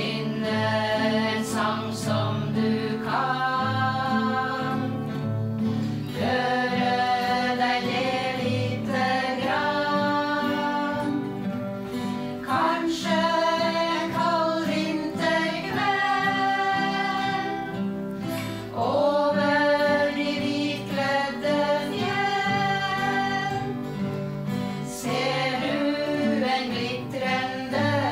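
A small group of women singing a slow song together, accompanied by several acoustic guitars.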